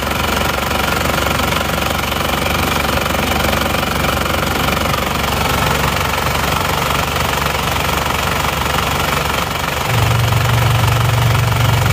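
Isuzu Panther diesel engine idling with a steady clatter, the oil filler cap taken off the valve cover. No blow-by pressure escapes now that the clogged PCV valve has been cleaned. A low hum gets louder near the end.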